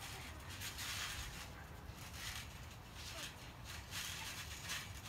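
Indistinct children's voices with scuffling and bouncing of bodies on a trampoline mat, over a steady low rumble.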